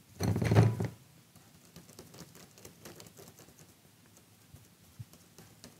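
Soft, irregular tapping of a paint-loaded sponge dabbed through a plastic stencil onto a wooden board. In the first second there is a short, louder burst of noise while the sponge is pressed into paint on a plate.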